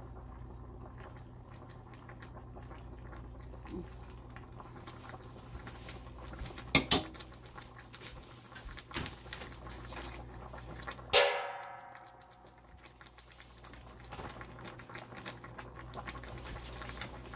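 Seafood boil simmering in a wide pan on the stove, its sauce bubbling and crackling faintly over a steady low hum. A sharp click comes about seven seconds in, and a louder clink with a short ring about eleven seconds in.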